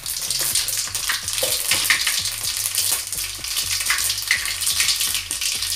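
Mustard and fenugreek seeds sizzling in hot oil in an aluminium kadai, a steady hiss full of small crackling pops.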